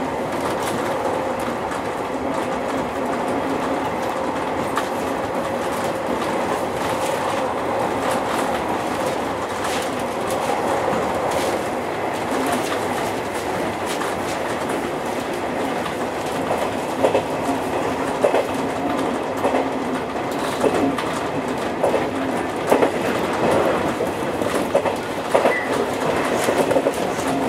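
A JR East 201 series electric commuter train running at speed, heard from the driver's cab. It makes a steady running noise with a hum through it, and rail-joint clicks become more frequent in the second half.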